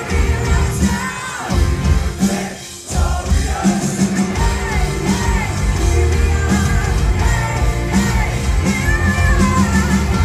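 Live hard rock band playing at full volume, a woman singing lead over distorted electric guitar, bass and drums. The band stops for a moment a little under three seconds in, then comes straight back in.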